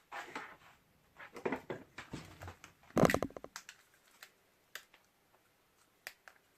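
Rustling and handling of small objects on a workbench, with one louder brief clatter about three seconds in, then a few light clicks.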